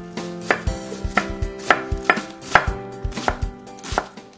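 Chef's knife chopping an onion on a wooden butcher-block cutting board: sharp knocks of the blade hitting the wood, about two to three a second and unevenly spaced.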